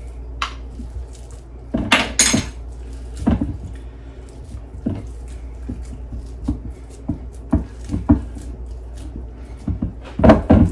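A metal spoon and hands working raw meatloaf mixture in a glass loaf pan: scattered clinks and taps against the glass and pats on the meat. The loudest clinks come about two seconds in and again near the end.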